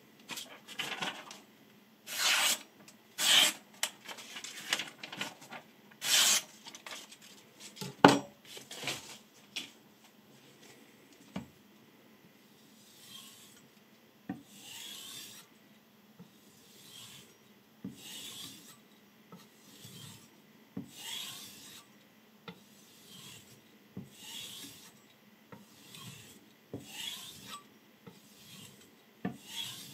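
Kitchen knife edge drawn along a long flat sharpening stone in repeated strokes, a rasping swish every second or so. The strokes are louder in the first few seconds and softer later, with one sharp knock about eight seconds in.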